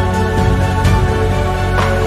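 Background music: sustained chords over a deep bass, with a soft beat about once a second.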